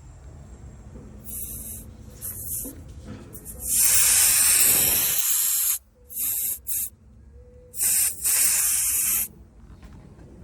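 Air hissing out of a ripped tire valve stem in several bursts, the longest and loudest lasting about two seconds near the middle: the stem is torn and leaking.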